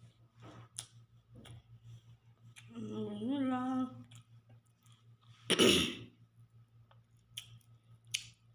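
Eating by hand from a dish: faint chewing and mouth clicks over a steady low hum. About three seconds in comes a short hummed vocal sound rising in pitch, and a little past halfway a loud short burst from the eater's mouth or throat.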